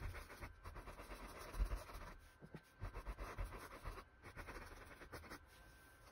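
Paintbrush strokes scratching across a stretched canvas, a faint scratchy hiss chopped up by several abrupt cuts, with a soft low thump about one and a half seconds in.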